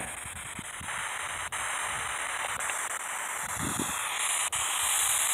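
Steady hiss of radio static from a handheld spirit box, stepping up a little in loudness about a second in, with a few faint clicks and a brief faint tone near the middle.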